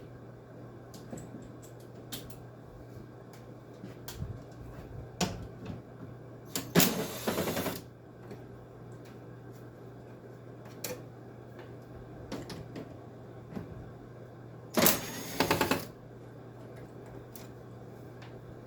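Hand tools and parts of a window air conditioner being handled: scattered clicks and clinks, with two brief rattling, scraping noises of about a second each, about seven and fifteen seconds in, over a steady low hum.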